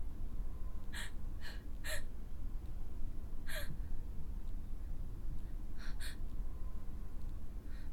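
A person gasping for breath in short, sharp gasps: three in quick succession about a second in, one near the middle and a pair about six seconds in, over a low steady rumble.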